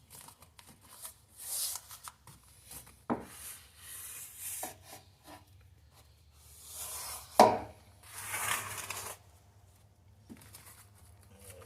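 Scraping, rubbing and rustling from work on floor padding, broken by a few sharp knocks, the loudest about seven seconds in.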